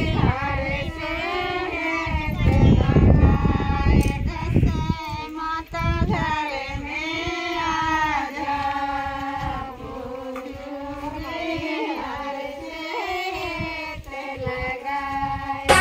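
Women's voices singing a devotional folk song with a wavering, gliding melody, with a low rumble underneath at times.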